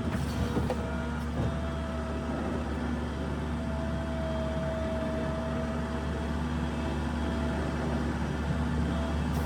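New Holland LS170 skid steer running steadily, a low engine hum with a steady whine over it.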